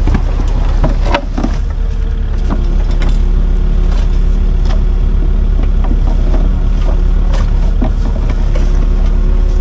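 Kubota mini excavator's diesel engine running close by, a steady low throb, as the machine works its boom and bucket while stuck in mud. A few sharp cracks and snaps come in the first two seconds.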